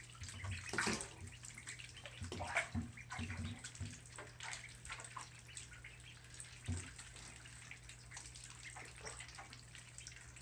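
Ducklings paddling and diving in shallow bathtub water: scattered small splashes and drips over a low steady hum.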